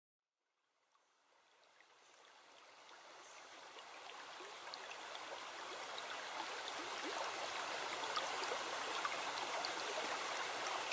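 A woodland stream running, fading in from silence over the first few seconds and then holding steady.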